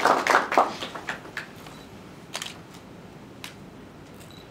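Audience applause tapering off and dying away within the first second or so, followed by a few isolated faint knocks.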